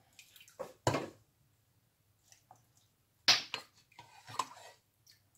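Ladle knocking against a pot and a glass jar while brine is ladled over shredded red cabbage: two sharper knocks, about one second and about three seconds in, with lighter clicks between.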